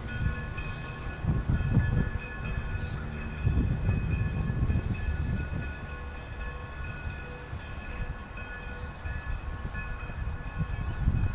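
Southern Pacific 2472, a 1921 Baldwin 4-6-2 steam locomotive, working away with heavy, uneven exhaust chuffs that swell about a second in, again around four seconds in, and near the end. A steady chord of several high tones holds underneath.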